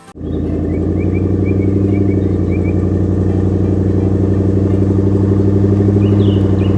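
A heavy truck engine running steadily with a deep, even hum, cutting in abruptly and swelling slightly louder. Faint short high chirps sound over it.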